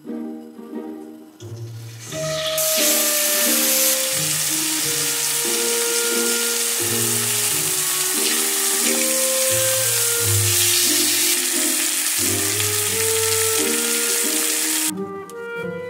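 Yoghurt-marinated chicken pieces frying in hot oil in a cast-iron skillet: a loud, steady sizzle that starts about two seconds in and stops near the end, with background music underneath.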